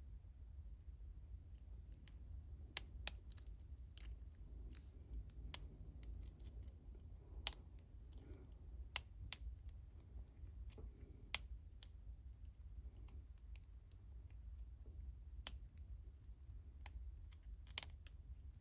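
Lock pick working the pins of a Union 5-pin oval cylinder: faint, irregular metallic clicks as pins are lifted and tension is eased. The picker is working the lock out of a deep false set.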